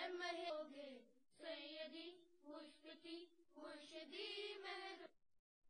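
Faint singing by a high voice with no instruments, in several short phrases with pauses between them, stopping about five seconds in.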